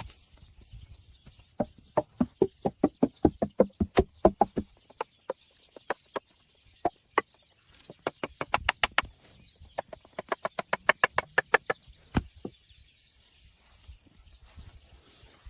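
Rapid runs of sharp knocks, about six or seven a second, in three bursts, then one single louder knock.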